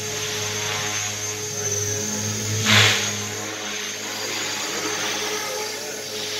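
Small radio-controlled helicopter in flight: a steady motor and rotor whine with a hiss behind it, and a brief loud rush of noise about three seconds in.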